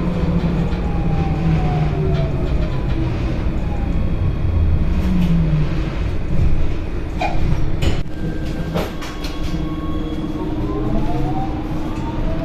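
Cologne light-rail tram heard from inside while in motion: steady rumble of the wheels on the rails, with a few sharp clicks in the middle. A motor whine slides down in pitch in the first seconds and rises again near the end.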